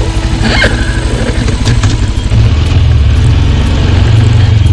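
ATV engine running, with the throttle opening up and the engine getting louder about two seconds in.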